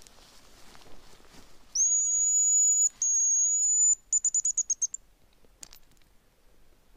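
Hazel grouse decoy whistle blown close by: two long, thin, high whistles, the first rising slightly as it starts, then a quick run of about eight short notes, the hazel grouse's song used to call the bird in. A single sharp click follows soon after.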